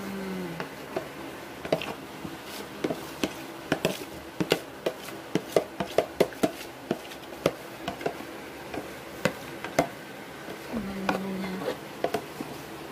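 A kitchen utensil clinking and tapping against a mixing bowl and tin llanera moulds as cake batter is scooped into them: irregular sharp clicks, several a second, busiest in the middle.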